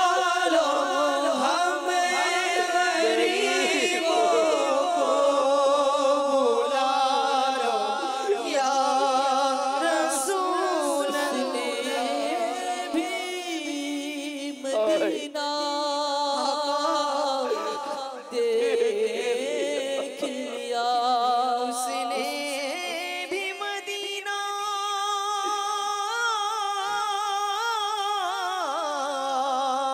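A man's unaccompanied voice singing a slow Bengali devotional lament into a microphone, with long, wavering held notes and no instruments.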